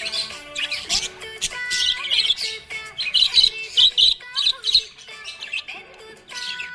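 Budgerigars chirping and twittering in quick runs of short high calls, busiest in the middle, over background music with held notes.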